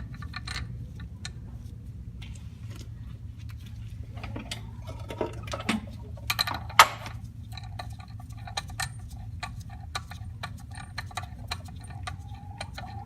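Hand tools clicking and ticking against metal while a bolt is threaded into the drive clutch, with a sharp click about seven seconds in and quick ratchet-like ticking near the end. A low steady hum runs underneath.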